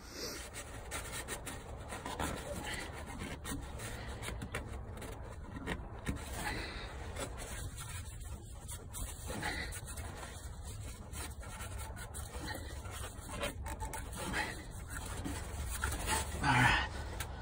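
Shop towel rubbing and wiping the fuel filter housing of a 6.7 Cummins diesel pickup clean, an irregular scrubbing over a steady low hum.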